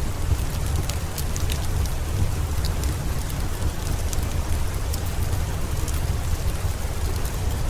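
Steady rain with a deep, even low rumble, and scattered sharp crackles from a wood fire in a fireplace.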